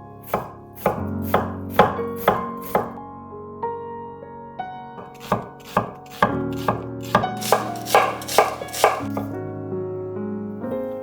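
Knife chopping on a cutting board: a run of sharp, evenly spaced strokes, about two a second, pausing for a couple of seconds in the middle before a second, longer run. Soft background music plays underneath.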